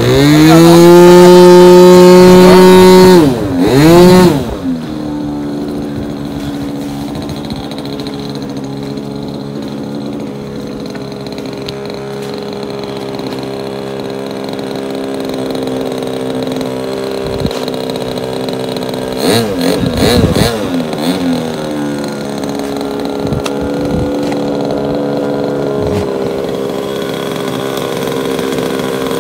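Radio-control model airplane's piston engine revved loudly to a high, steady full-throttle pitch, then dropped back about three seconds in to a steady idle. It is blipped briefly a couple of times later on.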